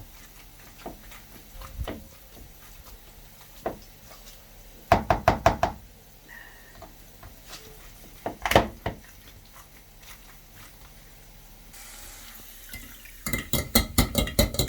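Mashing sweet potatoes and beans in a hot pot, the masher knocking against the pot: a quick run of about six knocks, a single knock a few seconds later, then another fast run of knocks near the end.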